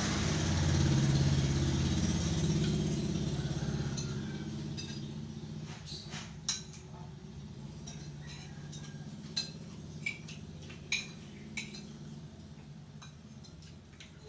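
Metal spoons clinking against plates while eating, five or six sharp clinks in the second half. Over the first few seconds the low hum of a passing motor vehicle's engine fades away.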